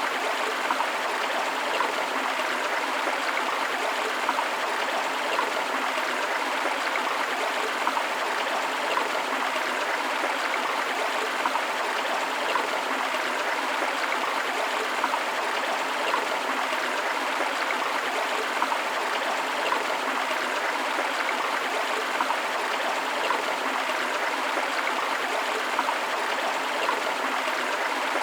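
A forest river rushing and splashing over rocks: a steady, even rush of flowing water with small gurgles and splashes throughout.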